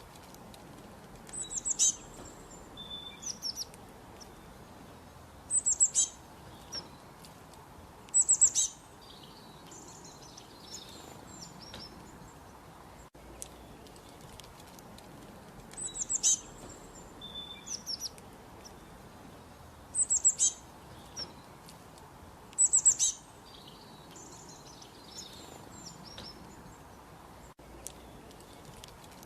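Small songbirds calling in short, high chirps and trills, a phrase every few seconds, over a steady soft hiss.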